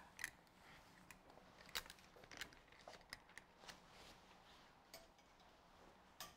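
Faint scattered clicks and rustles of clothes hangers and garments being handled on a metal clothing rack, over quiet room tone.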